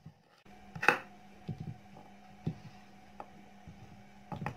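Kitchen knife cutting through raw potato and knocking on a wooden cutting board: a few separate knocks at uneven spacing, the loudest about a second in and a quick pair near the end.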